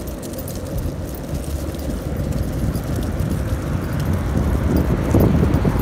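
Longboard wheels rolling over an asphalt path, a steady rumble that grows louder in the second half.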